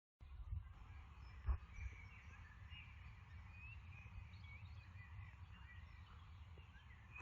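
Outdoor ambience of small birds chirping, with many short, high calls over a low rumble and a single thump about one and a half seconds in.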